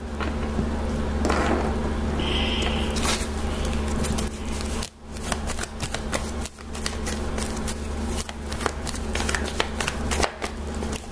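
Tarot cards being shuffled by hand: a steady rustle for the first few seconds, then a long run of quick card clicks and taps.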